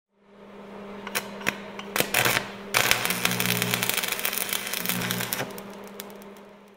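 Logo-intro sound effect of static and crackling clicks over a steady low hum. The noise swells about three seconds in, then fades out.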